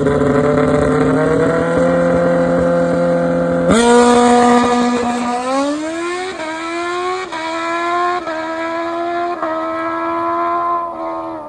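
Drag-racing sport motorcycle held at steady revs on the starting line, then launching about four seconds in and pulling away hard down the strip. Its pitch climbs and drops sharply at about five quick upshifts, getting fainter as it goes. The bike is running strong now that a pinched fuel line has been fixed.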